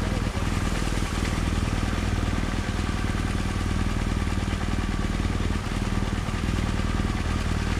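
Motorcycle engine running steadily at low road speed, heard from the rider's own bike through a helmet-mounted camera: a low, even engine note.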